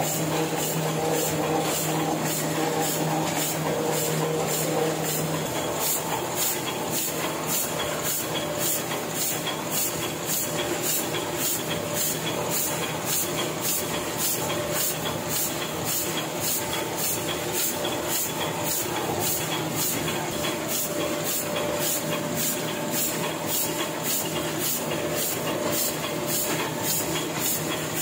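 Offset printing press running steadily, with a regular clack about twice a second from its machine cycle over a constant mechanical whir. A low hum drops out about five seconds in.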